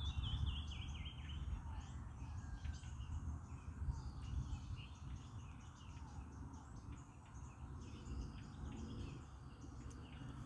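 Many small birds chirping and calling in the reeds, with a falling trill at the start, over a low steady rumble of wind on the microphone.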